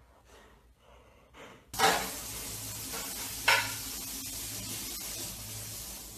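A steady hiss that starts suddenly just under two seconds in, with two sharp taps about a second and a half apart; before it, near silence.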